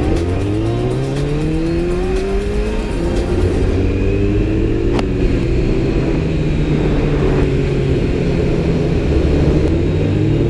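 Kawasaki Z900's inline-four engine pulling away and accelerating: the revs climb for about three seconds, drop at a gear change, hold fairly steady, then climb again near the end, with wind noise underneath.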